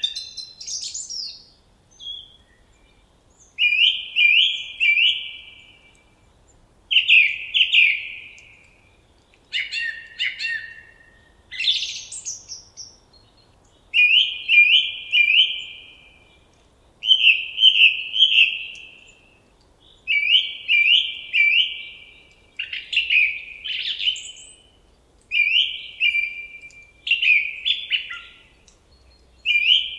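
A songbird singing, repeating a short phrase of two or three quick, falling notes every two to three seconds, with a few higher chirps in between.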